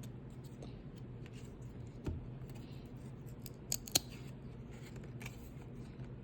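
Glossy baseball trading cards being handled and peeled apart: faint rubbing and small clicks of card stock, a soft low thump about two seconds in and two crisp snaps, the loudest sounds, just before four seconds.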